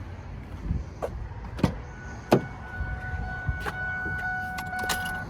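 Scattered clicks and knocks of the cab of a 2007 Ford F550 being readied to start, then a steady electronic warning chime that comes on about two seconds in as the key is switched on.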